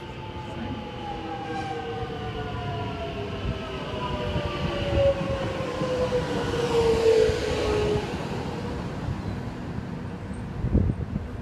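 Suburban electric train pulling into the platform and braking: its traction motors whine in several tones that fall steadily in pitch, the whine stopping as it comes to a halt about eight seconds in, over a low rumble. A couple of short low thuds follow near the end.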